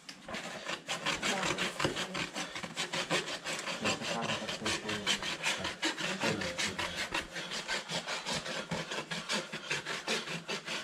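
Farrier's rasp filing a horse's hoof wall in quick, even back-and-forth strokes that scrape across the horn.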